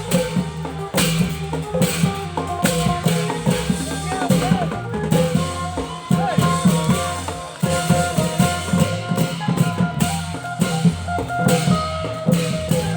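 Thai klong yao long-drum ensemble playing: dense, fast drum strokes over a sustained melody line that slides in pitch.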